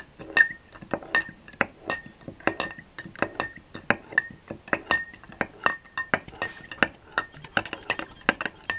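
Spoon stirring in a mug, clinking against the mug's wall about two to three times a second, each clink leaving a short ring. It is stirring hardened burnt-sugar caramel into vodka until it dissolves.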